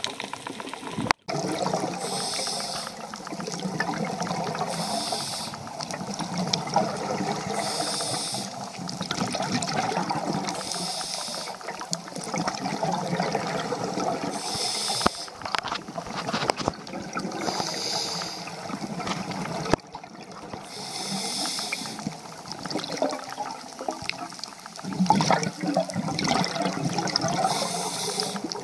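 Moving water, with a hissing rush that comes back about every two to three seconds.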